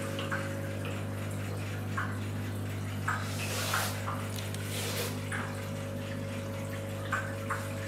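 Aquarium water trickling, with a few short splashes, over a steady low hum from the running equipment.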